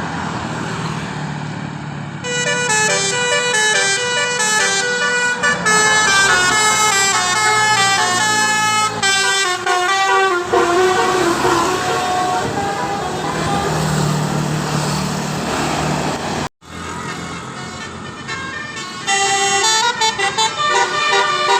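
Basuri 'telolet' musical horn on a tour bus, its roof-mounted trumpets playing a tune of quick stepping notes. The tune plays for several seconds, gives way to engine and road noise, then a second horn tune starts near the end.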